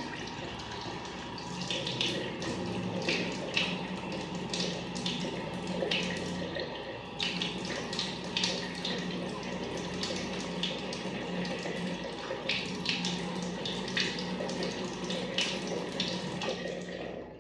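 Bathroom sink tap running while hands scoop and splash water onto a face, with many short splashes over the steady flow. The water cuts off shortly before the end.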